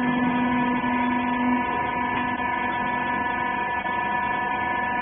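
Vertical rags baler's electric motor and hydraulic pump running with a steady hum while the press plate is raised; a lower part of the hum drops out about a second and a half in.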